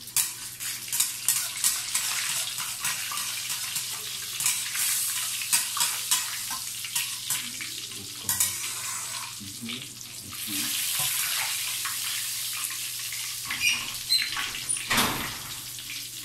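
Sesame seeds frying in hot oil in a wok until golden: a steady sizzle full of sharp crackles and pops, with the clink and scrape of a spatula stirring.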